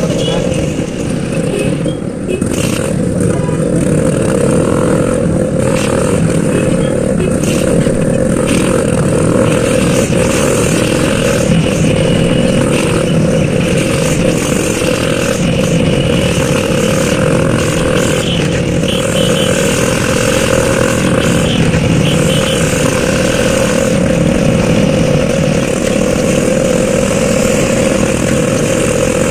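Motor scooter's engine running steadily while riding along a street, with road noise.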